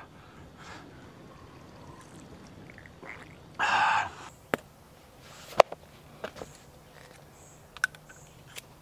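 A man spitting out a mouthful of drink in one short spray, about three and a half seconds in, followed by a few scattered sharp clicks and taps, the loudest about halfway through.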